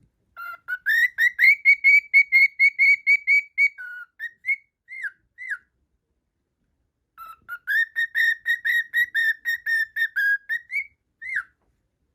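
A cockatiel whistling its song: quick runs of repeated whistled notes, several a second, with a pause of about a second and a half in the middle.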